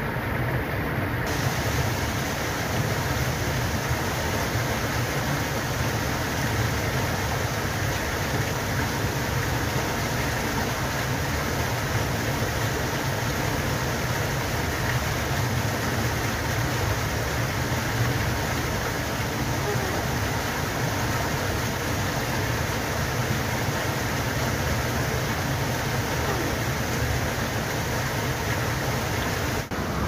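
Waterfall's steady roar of falling water, a dense, even rush with no distinct events. It turns brighter and hissier about a second in and dips briefly just before the end.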